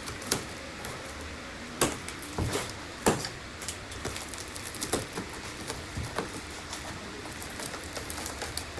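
Packaging being opened by hand: irregular rustling and clicking, with a few sharper snaps, the loudest about two and three seconds in.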